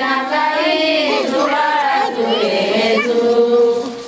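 Voices singing a devotional song, a slow melody with a long held note in the second half that dips in loudness at the very end.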